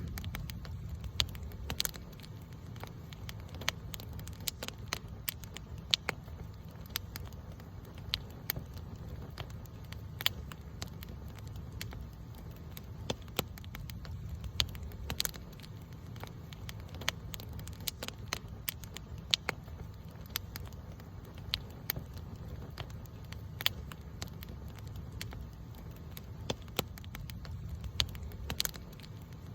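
Wood campfire crackling, with frequent sharp, irregular pops over a steady low rumble.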